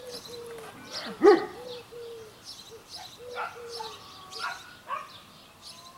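Puppy biting and tugging a jute puppy cuff, giving a string of short whining cries with one loud sharp bark about a second in.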